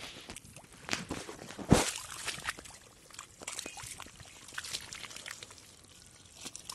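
Hands digging and squelching in soft wet mud among water plants: irregular wet splats and sloshes, the loudest about two seconds in.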